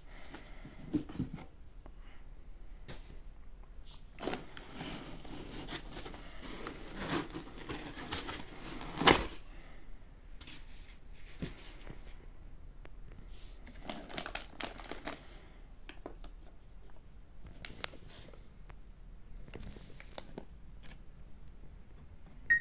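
Unboxing handling noise: cardboard and foam packaging rustling, scraping and crinkling as it is lifted and moved around the boxed 3D printer, in irregular bursts, with one sharp knock about nine seconds in.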